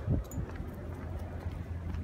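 Steady low rumble of a distant aircraft passing high overhead, building from about a second in, with a low thump at the start.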